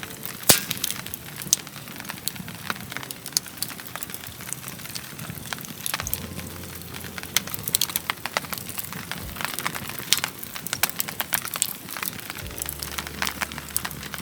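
Wood campfire crackling, with irregular sharp pops and snaps of varying loudness over a steady hiss.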